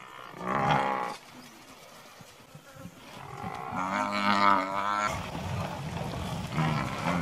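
Cape buffalo bawling: a short call about half a second in, then a longer wavering call around the fourth second. A steady low rumble follows near the end.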